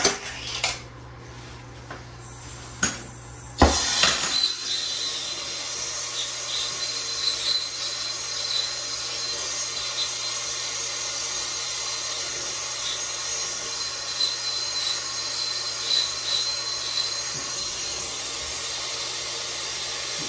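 A hand soldering torch lights with a sharp pop about four seconds in, then its flame burns with a steady hiss while heating a copper pipe joint for soldering.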